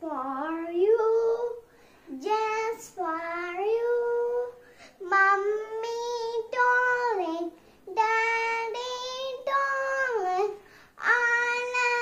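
A young girl singing a nursery rhyme unaccompanied, in a run of short phrases with held notes that glide up and down, and brief breaths between phrases.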